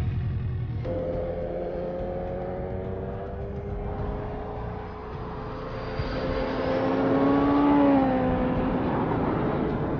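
Kawasaki Ninja H2's supercharged inline-four engine running hard at speed. Its note holds steady, then rises and falls again about eight seconds in, where it is loudest.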